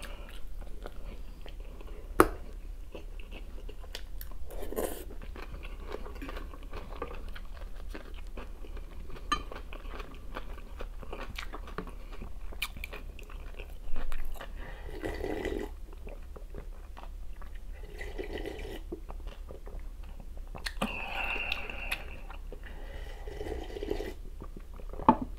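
A person chewing and crunching food, with small wet mouth clicks throughout and a few louder bursts of mouth noise in the second half. One sharp click about two seconds in.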